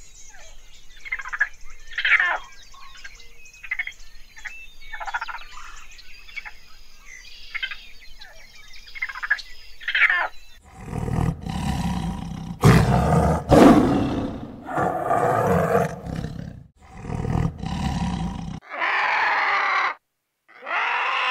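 Raccoons chittering and squealing in a rapid string of short, high calls. About eleven seconds in, much louder, harsh, roar-like animal calls take over in several long bursts, followed by two shorter pitched calls near the end.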